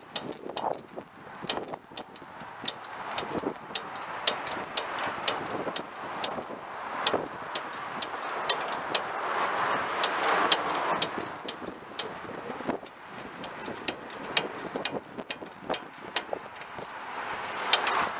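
Socket ratchet wrench clicking in short irregular runs while a stuck bolt on the tractor's plow mount is worked loose, with wind noise on the microphone rising and falling.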